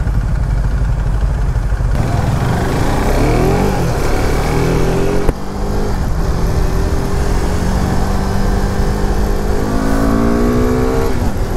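KTM RC 390's single-cylinder engine accelerating, its pitch climbing, with a sudden dip about five seconds in, then a long steady climb. Heavy wind rumble on the microphone underneath.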